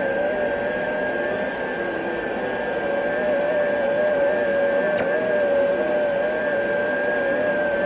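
Shortwave radio receiver tuned to 14075 kHz, giving out a hiss of band noise with an unknown station's strange signal: a slightly wavering whistle and a steady higher whistle running together. A single click about five seconds in.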